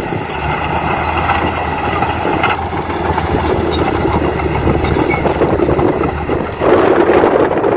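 Diesel engine of heavy earthmoving machinery running steadily, with light clicking over it. About two thirds of the way through it gets suddenly louder, as the engine is put under more load.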